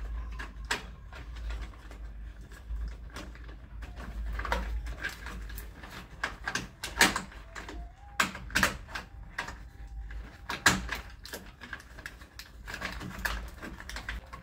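Irregular clicks, knocks and rustles of electrical wires being folded and pushed into a wall box and a motion sensor switch being pressed in against the box, with several sharper knocks in the middle.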